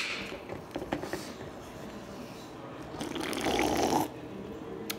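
An aluminium drink can being handled and drunk from: a few light clicks of the can about a second in, then about a second of gulping liquid around three seconds in.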